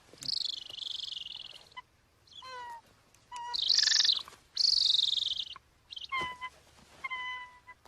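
A captured male golden eagle calling in alarm: three harsh, high screeches of about a second each, alternating with short, clear yelping calls, some falling slightly in pitch.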